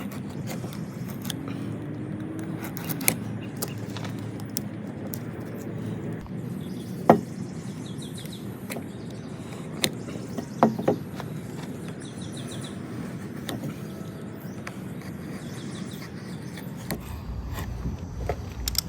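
A utility knife blade scraping and cutting into a 2x6 board, with a few sharp knocks or cracks, the loudest about seven seconds in. Birds chirp faintly in the background.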